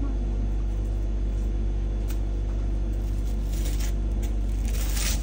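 A steady low hum, with short rustles as a long white roll is picked up and handled; the loudest rustle comes near the end.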